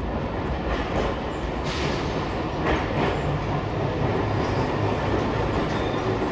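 Hiroden 700-series streetcar no. 701 approaching along street-running track, a steady rumble of its steel wheels on the rails with a few light clicks over the rail joints. A low hum grows stronger as it draws near.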